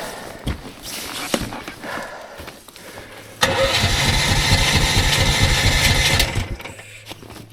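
Snowmobile engine revved hard for about three seconds, starting near the middle, then dropping back to a steady idle. Before it, some irregular rustling and knocks.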